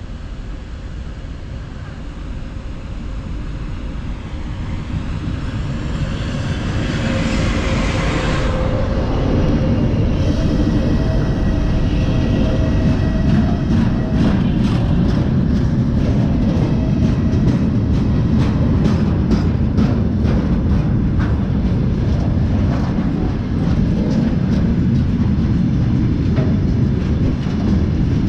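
2TE25KM twin-section diesel locomotive approaching and passing close by, its engine growing louder over the first eight seconds or so. A freight train of tank cars then rolls past with a steady rumble and repeated clickety-clack of wheels over rail joints.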